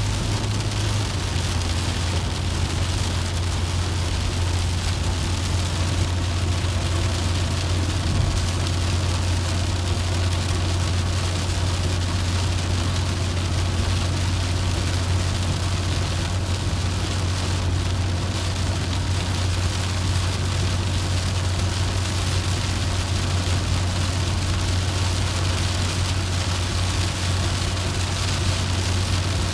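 Inside a car driving in the rain: a steady low rumble of the car and its tyres on the wet road, with rain hissing on the bodywork and windshield.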